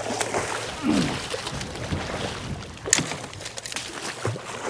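Water splashing and sloshing as a hooked jack crevalle thrashes at the surface and is scooped into a landing net. There are several sharp splashes, the loudest about three seconds in.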